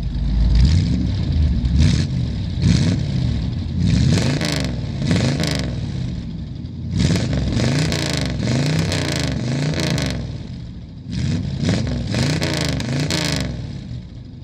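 A 1965 Buick Riviera's Nailhead V8 revved again and again while standing, its exhaust note rising and falling with each blip of the throttle.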